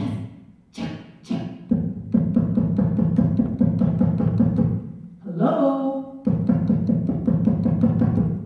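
Rapid drum-like thumping through a microphone in two long fast runs, after a few separate knocks, with a brief voiced sound between the runs.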